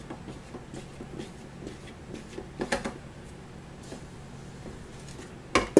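Silicone spatula scraping and clicking against a stainless steel mixing bowl as the last batter is scraped out, with a single sharp knock just before the end.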